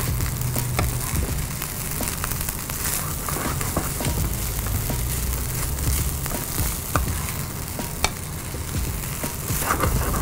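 Egg fried rice sizzling in a non-stick frying pan while a wooden spatula stirs and turns it, with scattered scrapes and taps of the spatula against the pan; one sharper tap comes about eight seconds in.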